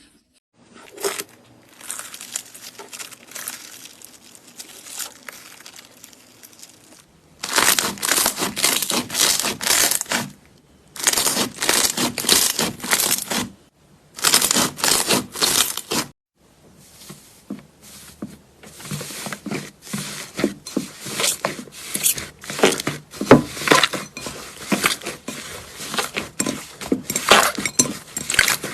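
Slime being squeezed and pressed by hand, with dense wet crackling and popping. It comes in three loud bursts of a few seconds each, then a long run of rapid crackles.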